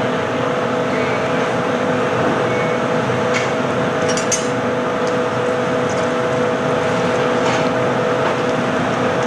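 Steady roar of a hot-glass studio's furnace and glory-hole equipment, with a constant two-tone hum running through it. A few light clinks come a third of the way in, around the middle, and again past the middle.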